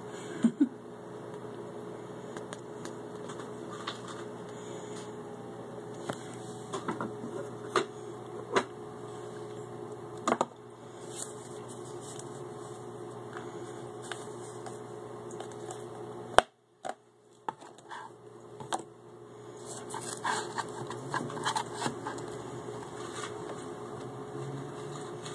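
Steady electrical hum of an aquarium filter running, with scattered sharp clicks and taps, and a busier run of clicks near the end. The hum cuts out briefly about two-thirds of the way through.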